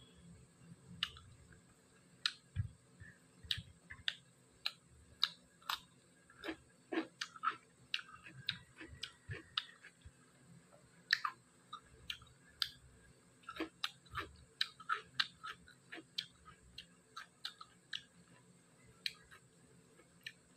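Close-miked eating of dry-fried pork: irregular wet chewing, crisp crunches and mouth clicks, at times several a second.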